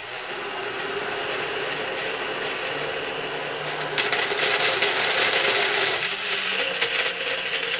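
Personal blender blending a smoothie of banana, apple, oat milk and a few ice cubes. The motor starts abruptly, runs steadily, and grows louder about four seconds in.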